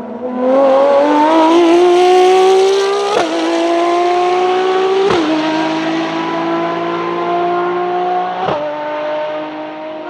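Ferrari FXX K Evo's hybrid V12 accelerating hard out of a corner and pulling away. Its pitch climbs through the gears, with three quick upshifts about three, five and eight and a half seconds in, each a brief crack and a drop in pitch. It is loudest early on and slowly fades as the car moves off.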